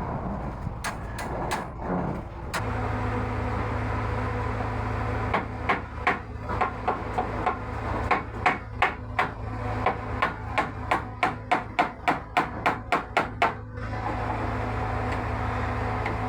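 A hammer striking repeatedly: a few scattered knocks, then a long run of quick, regular blows, about three a second and quickening, that stops near the end. A steady low hum runs underneath.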